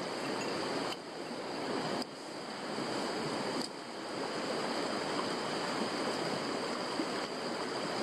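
Small mountain creek rushing over stones, a steady even rush of water that dips briefly a few times.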